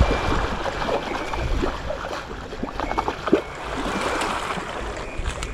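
Water splashing and lapping, with a few small knocks.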